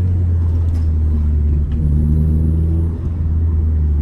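Renault Clio 197's 2.0-litre four-cylinder engine running through a freshly fitted non-resonated Scorpion cat-back exhaust, a steady deep drone with a slight change in pitch about halfway. The owner says the exhaust is still blowing a bit at the middle joint for lack of a clamp.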